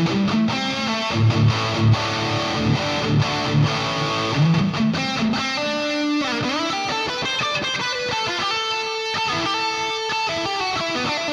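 Electric guitar played through a Flamma FG200 multi-effects pedal on its factory preset P0D: a low rhythmic riff in the first half, then higher held single notes with a bend about six seconds in.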